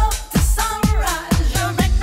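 Disco-flavoured house music with a four-on-the-floor kick drum at about two beats a second under a bending melodic line.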